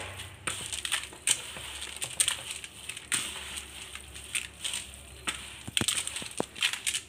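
A hand mixing and squeezing a wet mixture of banana, uncooked glutinous rice and grated coconut in a plastic basin, with irregular rustling strokes about every half second to a second.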